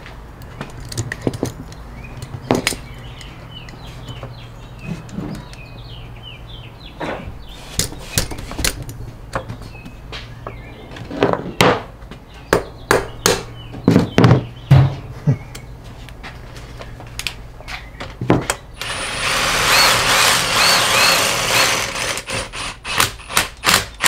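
Metal clinks and knocks of a three-jaw gear puller being set and adjusted on the steel output flange of an NP241 transfer case, its jaws and arms tapping against the flange. Near the end a power tool runs for about three seconds, then more clinks follow.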